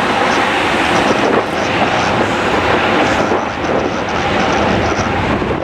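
Wide-body jet airliner's engines running, a loud, steady rushing noise with small dips about one and a half and three and a half seconds in.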